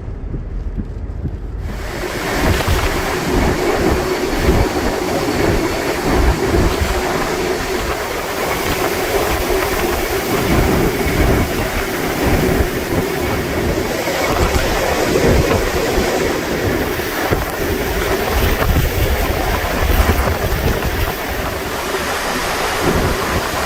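Hurricane Ian's wind and rain: a loud, steady rushing roar that cuts in abruptly about two seconds in over a low rumble, with gusts buffeting the microphone.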